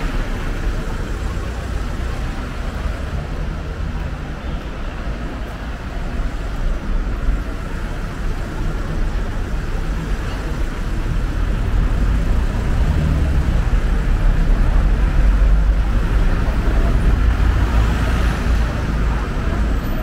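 City street traffic noise: a steady low rumble of passing cars, growing louder in the second half as vehicles go by.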